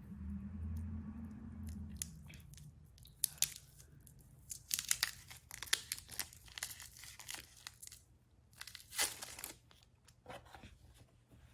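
Packaging being torn open by hand, with repeated crackling and crinkling of wrapping and sharp tearing sounds. A low hum comes first, for about the first two seconds.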